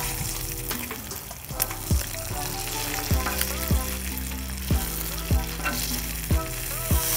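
Thick-cut bacon sizzling on a Blackstone griddle's steel flat top as metal tongs turn the strips, under background music with a deep, regular beat.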